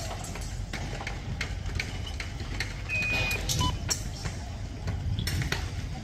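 Construction-site ambience: a steady low rumble with scattered sharp knocks and clicks, and a brief high beep about halfway through.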